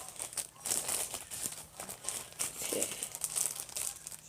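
Irregular crinkling and crackling of something being handled, a dense run of small sharp crackles.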